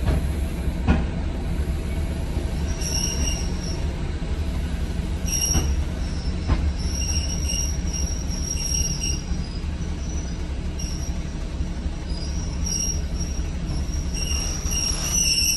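Class 73 electro-diesel locomotive under way, heard from the cab, running on its diesel engine with a steady low rumble. High wheel squeal comes and goes repeatedly and is loudest near the end, with a few sharp knocks from the track.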